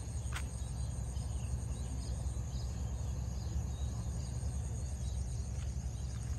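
Steady high-pitched insect chirring with a few faint bird chirps scattered through it, over a constant low rumble.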